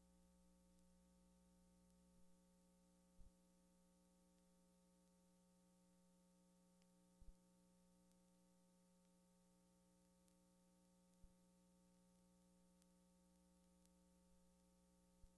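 Near silence: a faint steady hum with a few soft clicks, the film having no recorded sound.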